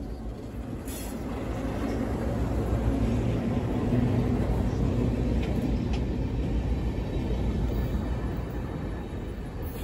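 EMD diesel road-switcher locomotives passing, their engines running with a steady low drone over wheel and rail noise, growing louder about three to five seconds in and easing off towards the end.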